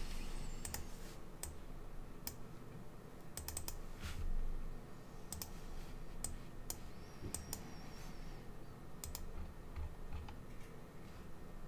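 Computer keyboard keys and mouse buttons clicking at irregular intervals, a few scattered clicks at a time.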